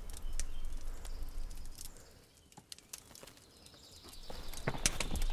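Scattered crackles of a campfire over a low rumble, falling almost silent midway. Near the end a quickening run of knocks starts: horse hooves clip-clopping in.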